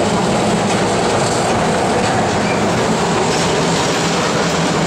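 Peter Witt streetcar rolling along street rails: a steady, even noise without breaks, mixed with passing car traffic.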